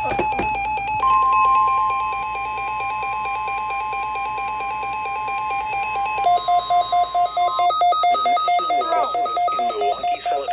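NOAA Weather Radio warning alarm tone: a single steady high tone of about 1050 Hz, starting about a second in and held for about seven seconds before cutting off, over a pulsing electronic beeping that steps lower partway through. The tone marks the start of a warning broadcast, here a severe thunderstorm warning.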